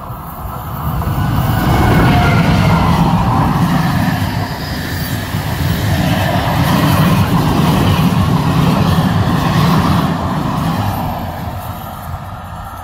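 Electric-locomotive-hauled passenger train passing close by at speed: a heavy rumble and rattle of wheels on the rails. It swells about a second in, holds, and fades near the end as the coaches go by.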